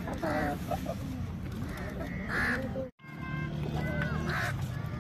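Domestic fowl giving short calls about every two seconds over a busy background. The sound cuts out for an instant about three seconds in.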